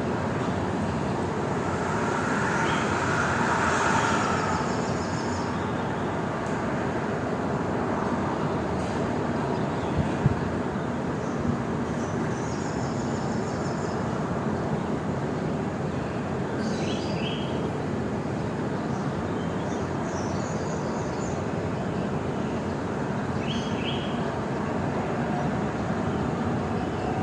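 Beach ambience: a steady rush of surf, with short bursts of bird chirps high above it every few seconds. A single sharp tap sounds about ten seconds in.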